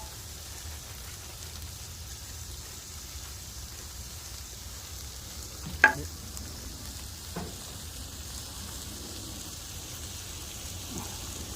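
Horse clam meat frying in a hot pan with garlic and lemongrass, a steady sizzle. A sharp clink of a utensil against the pan about six seconds in, and a fainter one a second and a half later.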